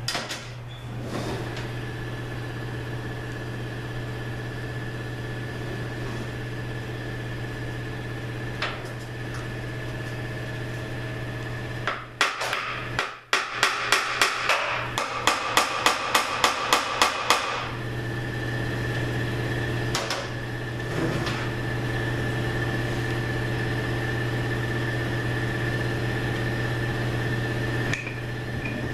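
A hammer striking metal on an automatic transmission being torn down to drive a part loose: a fast run of about fifteen sharp blows lasting some four seconds, with a few single knocks before and after, over a steady low shop hum.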